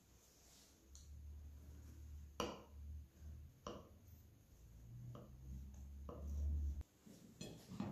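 A knife cutting into a soft sponge cake on a glass serving plate: faint handling sounds, with a handful of sharp clicks and knocks of blade and glass over a low rumble that stops suddenly near the end.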